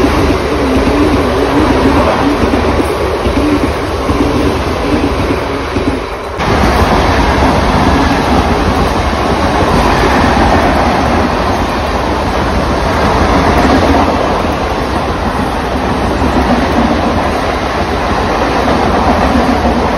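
Mumbai Western Railway suburban EMU local train running past close by, a loud steady noise of wheels on rails. A wavering hum sits under it for the first six seconds, and the level dips briefly about six seconds in.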